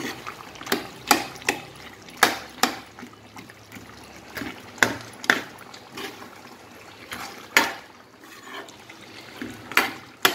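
Metal ladle stirring cooked sambar vegetables in a thick gravy in a kadai: repeated wet squelches and scrapes of the ladle against the pan, roughly one or two a second, pausing briefly near the end.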